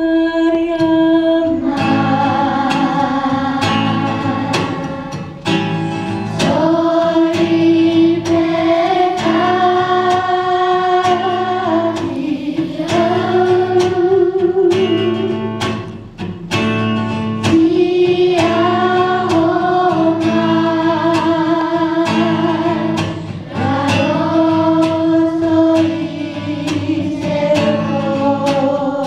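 Children's choir singing a slow song in unison, holding long notes, with an instrumental accompaniment marking the beat.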